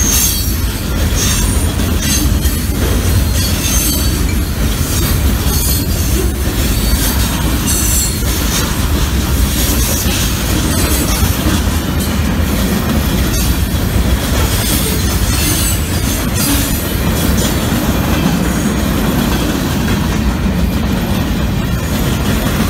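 Freight train cars rolling past close by: a steady heavy rumble of steel wheels on rail, with high-pitched wheel squeal coming and going, mostly in the first half.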